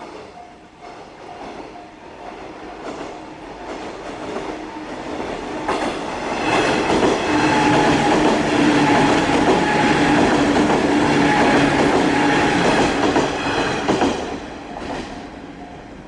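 A JR West 103-series electric train passes over the level crossing. It grows louder for several seconds, then runs past loudly for about eight seconds with wheels clacking over the rail joints, and fades away near the end. The crossing's warning bell dings faintly in the first couple of seconds.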